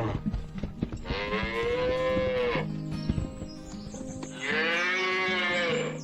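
Cow mooing twice, two long calls that each rise and then fall in pitch, over soft background music.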